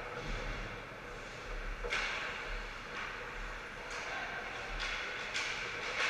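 Ice hockey game heard across an indoor rink: a steady echoing wash of skating and play, with sharp stick-and-puck clacks about two, four and five seconds in, over a faint steady hum.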